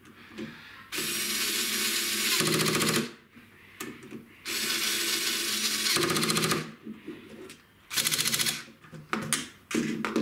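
Electric screwdriver with a hex bit running in three bursts of about two seconds each, tightening M5 cap head screws through a ball screw nut's flange into its mounting block.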